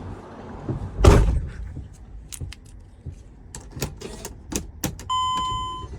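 A heavy thump about a second in, then a series of sharp clicks and knocks as the key is handled and turned in a 2008 Dodge Sprinter's ignition. Near the end comes a steady electronic beep lasting just under a second, from the van's dashboard warning chime.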